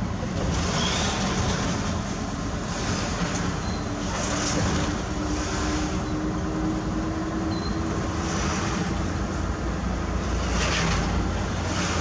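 Heavy truck's diesel engine running steadily with tyre and road noise while driving, heard from inside the cab.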